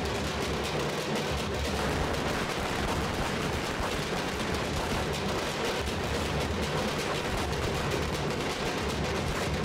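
A group of parai (thappu) frame drums beaten fast with sticks, the strokes coming close together without a break.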